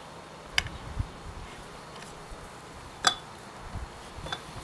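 Metal parts of a cast-iron hand grain mill clinking as a bolt is fitted and the mill is handled: three sharp metallic clicks with a brief ring, spread across a few seconds, and a soft knock about a second in.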